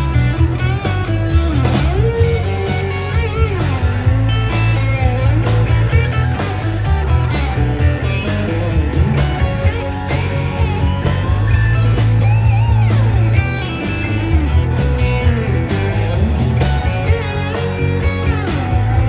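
Rock music led by guitar, with a steady bass line underneath.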